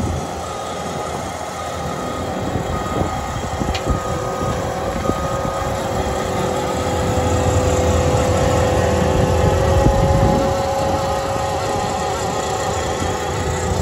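Caterpillar 259D3 compact track loader running under load with a hydraulic Hydrabucket rotor attachment churning up sod, with a steady whine over the engine. A reversing alarm beeps through the first five seconds or so, and the machine gets louder near the end.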